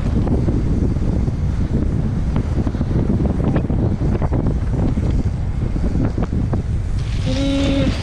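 Heavy wind buffeting the microphone of a downhill mountain bike ridden at speed, with irregular knocks and rattles from the bike over rough ground. Near the end a short held tone sounds for under a second.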